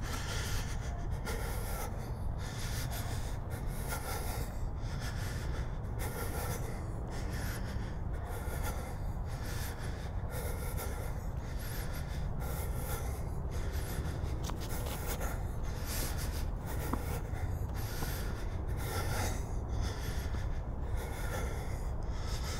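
A person's breathing close to a camera's built-in microphone while walking, a regular in-and-out rush of breath about once a second, over a steady low rumble.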